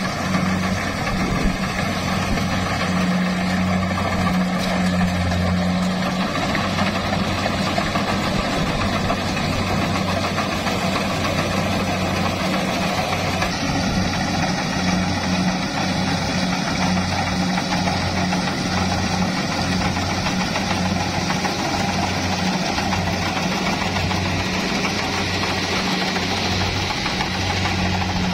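Rice combine harvester's diesel engine running steadily under load with the rattle of its header and threshing drum as it cuts flattened, lodged rice. About halfway through the sound turns brighter as it is heard from right beside the machine.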